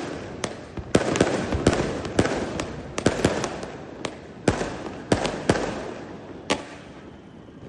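Fireworks and firecrackers going off: a string of sharp, irregular bangs over a background rumble, thinning out in the last couple of seconds.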